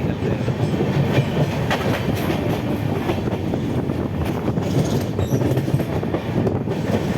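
Passenger train coaches running at speed, heard from aboard: a steady rumble of wheels on rail with frequent sharp knocks and clatter from the wheels over joints.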